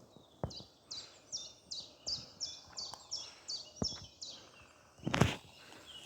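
A songbird singing a quick run of about a dozen high, down-slurred notes, about three a second, with the walker's footsteps as a few soft thumps and one louder thump near the end.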